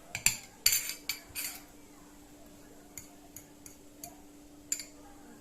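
A metal fork clinking and scraping against a dish while mashing boiled garlic cloves into a paste with olive oil. There is a quick cluster of clinks in the first second and a half, then a few lighter, spaced taps.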